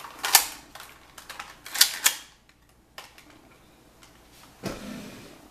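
Sharp plastic clicks and clacks of an airsoft pistol being handled and readied. There is a loud clack just after the start, a cluster of clacks about two seconds in with lighter ticks in between, and a dull thump near the end.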